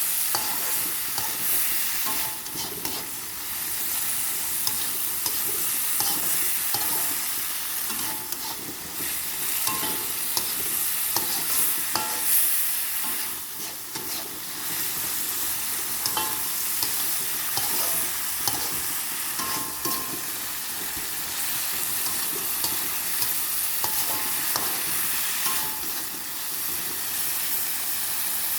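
Stir-fry of long beans, bean sprouts and tempeh sizzling in a pan while being stirred, with frequent clicks and scrapes of the spatula against the pan.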